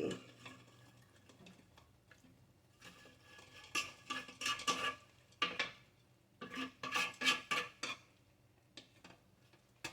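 Metal utensils clinking and scraping against a pan or dish, as if pasta is being stirred or served, in two short bouts of clatter separated by quiet.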